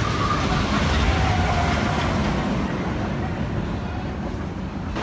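Steel looping roller coaster train rumbling along its track as it passes, loudest about a second in, with faint riders' voices over it.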